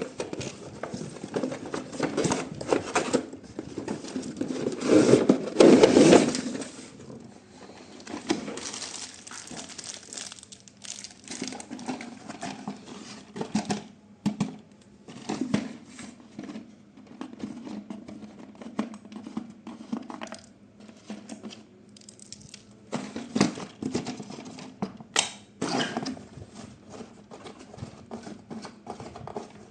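Packaging crinkling and rustling as a toy is unboxed, with scattered clicks and taps of handling. The loudest crinkling comes about five to six seconds in.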